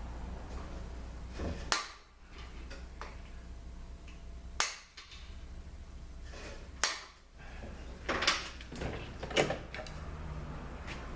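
Sharp metallic clicks and clinks, single ones at first and then a quicker cluster near the end, as a tool works a snap ring out of a 200-4R automatic transmission on the bench, over a steady low hum.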